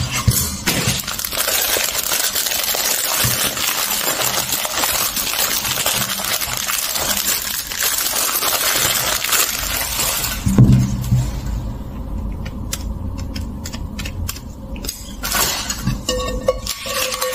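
Clear plastic packaging crinkling and rustling as it is handled and pulled out of a wok pan, dense for about the first ten seconds. Then a thump and scattered light clicks and taps as items are set down.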